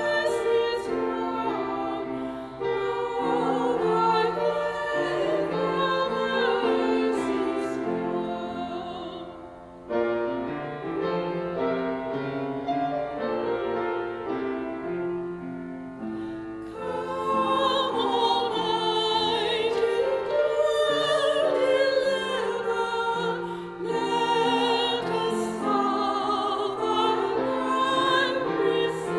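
Two women's voices singing a hymn with vibrato, accompanied by an upright piano. Around the middle the voices stop for several seconds while the piano plays alone, then the singing resumes.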